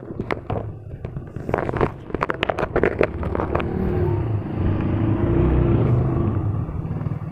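A motor vehicle's engine rumble swells up from about four seconds in and holds steady. Before it, in the first three seconds or so, metal chain dog leashes clink and rattle as the dogs move about.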